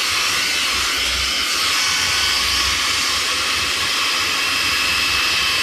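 One Step hot-air brush hair dryer running, giving a steady hiss of blown air.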